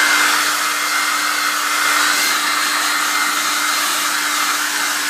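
A small electric appliance motor running steadily: a loud rush of blown air over a constant low hum.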